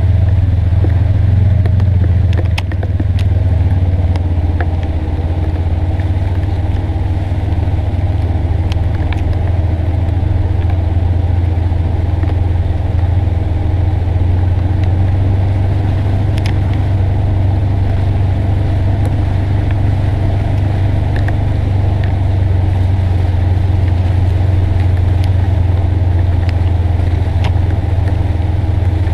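Polaris Ranger XP 900 side-by-side driving, its engine running at a steady low drone, with a few light clicks and rattles.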